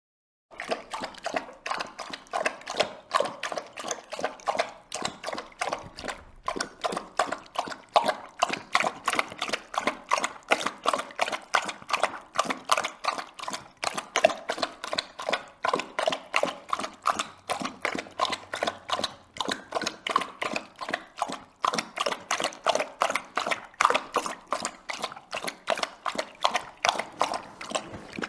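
A dog lapping water from a bowl: a steady rhythm of wet laps, about three to four a second, with brief pauses about six and twenty-one seconds in.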